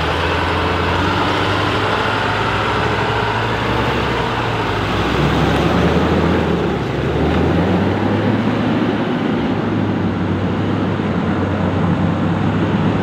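Truck engines running as a large truck and a pickup pull away on the road, a steady low engine hum whose note changes about five to seven seconds in.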